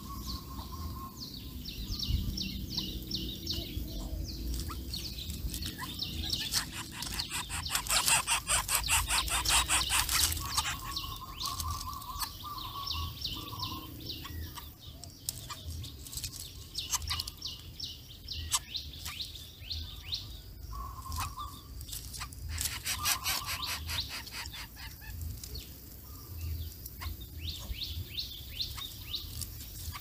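Birds chirping and calling in short, high notes, with a loud stretch of rapid, buzzy chattering from about seven and a half to ten and a half seconds in.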